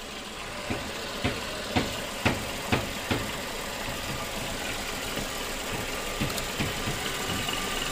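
Renault Kwid's three-cylinder petrol engine idling while aerosol cleaner is sprayed into the open air intake. In the first three seconds there is a run of short bursts, about two a second.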